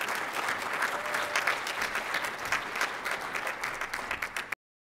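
Audience applauding, a dense patter of many hands clapping that cuts off suddenly about four and a half seconds in.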